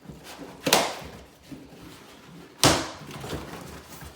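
Cardboard box being opened and handled: two sharp loud knocks or scrapes of cardboard, about a second in and near three seconds in, with softer rustling between.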